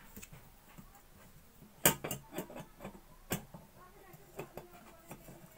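Sharp metallic clicks and ticks, irregularly spaced, the loudest about two seconds in. A wrench is tightening the pump valve fitting into a kerosene pressure stove's tank.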